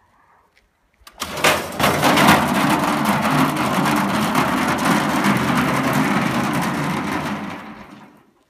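Steel barrel rolling across gravel, a loud rumbling, rattling noise. It starts about a second in with a few hard knocks and fades away near the end.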